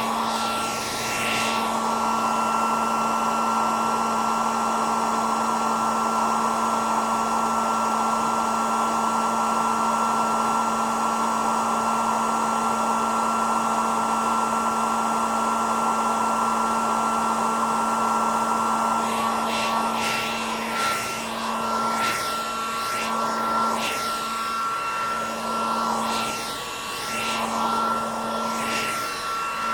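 Electric hair dryer running: a steady airy rush with a motor hum and a high fan whine. About two-thirds of the way through, the rush begins to waver and sweep up and down in loudness.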